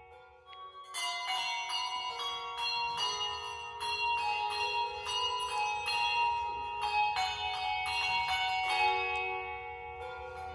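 A ring of bells struck one after another in a steady, even rhythm, about three strikes a second, as in change ringing. The bells start about a second in, after a short near-silent gap, and each strike rings on over the next.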